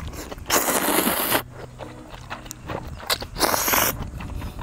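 Two loud slurps of cold noodles, the first just under a second long and the second shorter, near the end.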